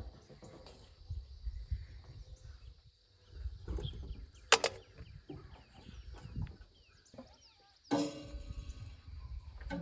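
Button mushrooms being set on a round wire grill rack: soft handling taps and a couple of sharp metal clinks, one about halfway through and one near the end. Small birds chirp in the background over a low rumble.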